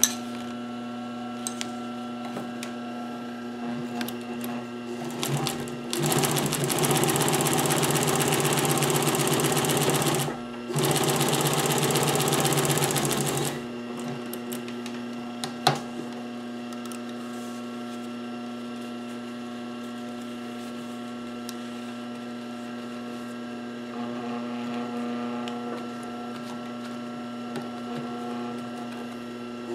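Pfaff 1245 industrial walking-foot sewing machine stitching a leather strap in two fast runs with a short stop between them, over a steady hum. A single sharp click comes a couple of seconds after the sewing stops.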